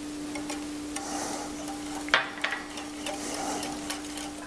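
Wire whisk stirring an egg mixture in a ceramic bowl: soft scraping with scattered light clicks of the wires against the bowl, the sharpest about two seconds in. A faint steady hum runs underneath.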